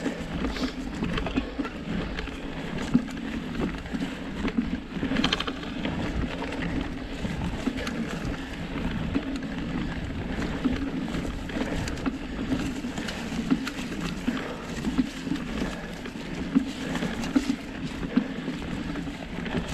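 Surly Krampus 29+ mountain bike riding along a dirt singletrack trail: the tyres rolling steadily over the ground with frequent small clicks and knocks from rocks, roots and the bike rattling.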